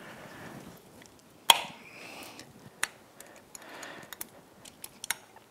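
Light metal clicks and taps as an aluminium big bore cylinder is eased by hand over the piston rings and down the cylinder studs of a Honda Grom engine. The sharpest click comes about one and a half seconds in, another near three seconds, and a few small ticks near the end.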